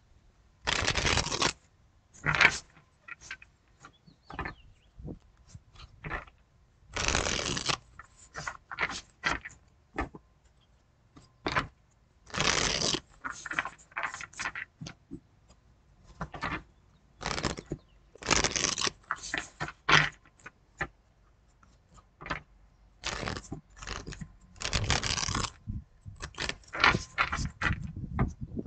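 A tarot deck being shuffled and handled by hand: repeated bursts of cards rustling and riffling every few seconds, with short snaps and taps of cards in between.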